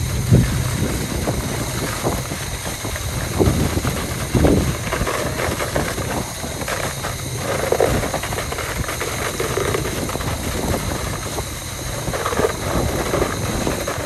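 Concrete pump truck running steadily while pumping concrete through its boom hose, with a few louder low thumps along the way.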